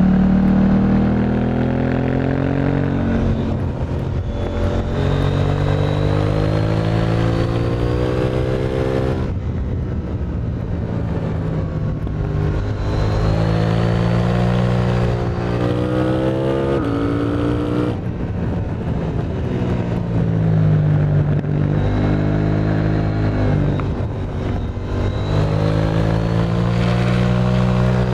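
KTM 890 Duke R's parallel-twin engine through an Akrapovič exhaust, revving up through the gears with the pitch climbing in repeated steps. The throttle snaps shut twice, about nine and eighteen seconds in.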